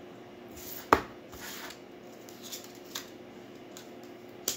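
Tarot cards being handled on a table: short papery swishes and ticks as cards are slid and drawn from the deck, with one sharp tap about a second in.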